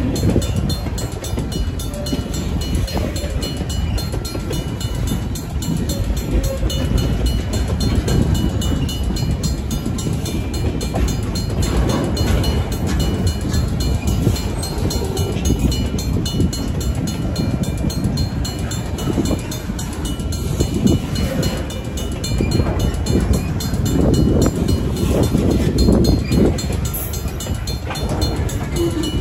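A freight train's cars rolling past close by: tank cars, flatcars and covered hoppers. Their steel wheels rumble and clatter steadily on the rails, swelling a little near the end.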